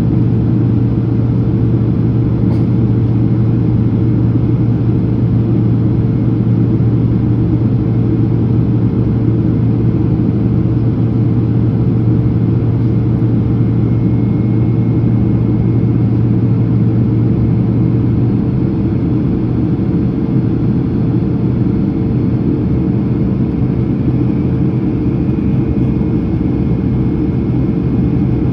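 Steady cabin noise inside a Boeing 767-300ER descending on approach: a low engine hum under a constant airflow rumble. The low hum drops away about two-thirds of the way through.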